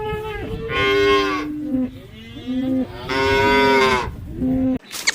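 Cattle mooing: two long, loud calls of about a second each, with lower calls overlapping between them. The sound cuts off suddenly near the end.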